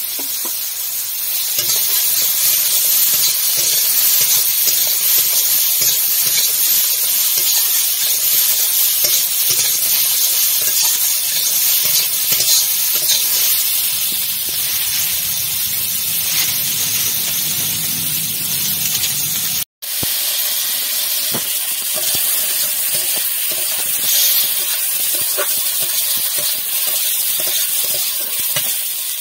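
Sliced ridge gourd and green chillies frying in hot oil in a kadai: a steady sizzle, stirred with a metal spatula near the end. The sound cuts out for a moment about two-thirds in.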